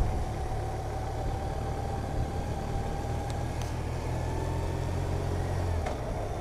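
Motorcycle engine running while riding, heard under a steady rush of riding noise. A faint whine slowly rises in pitch over the first few seconds as the bike picks up speed, and the engine note drops off about six seconds in.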